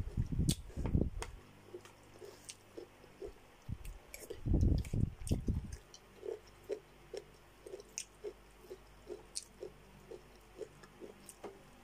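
Close-miked chewing of boiled chicken and cabbage, with heavier mouthfuls near the start and around four to five seconds in, then steady chewing at about two chews a second.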